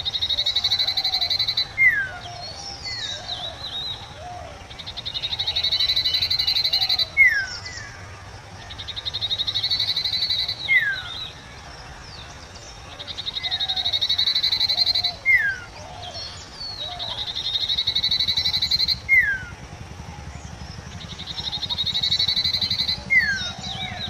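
Common iora (Aegithina tiphia) singing: about every four seconds a long, rapid buzzy trill of roughly two seconds that ends in a short sharp falling note, six phrases in all.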